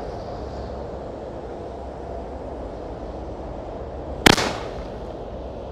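Launch of a 30 mm Pirastar firework shell: one sharp bang about four seconds in, with an echoing tail, over a steady low background rumble.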